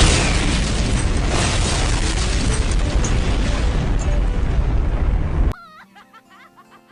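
Explosion sound effect: one long, loud blast that starts abruptly and cuts off suddenly about five and a half seconds in, used as a comic exaggeration of a boy's sneeze. Faint music follows the cut-off.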